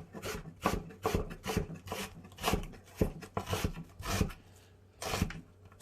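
Kitchen knife chopping vegetables on a cutting board: quick repeated strokes, about three a second, with a pause and a last stroke or two near the end.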